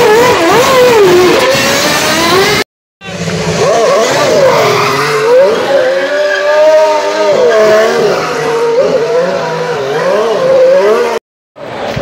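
Formula 1 cars' turbo V6 engines revving up and down during donuts, the pitch rising and falling with the throttle over the hiss and squeal of spinning rear tyres. The sound drops out briefly about three seconds in and again near the end.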